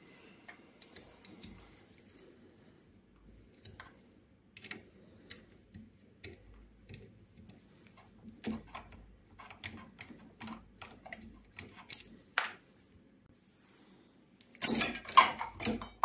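Small metal clicks and clinks of a door's mortice lock faceplate and screws being handled, scattered irregularly, with a louder burst of metallic rattling near the end as the lock case is worked out of the door edge.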